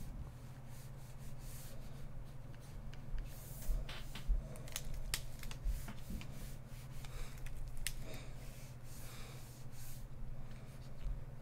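Stylus scratching across a graphics tablet in short strokes, with a few light clicks in the middle, over a steady low hum.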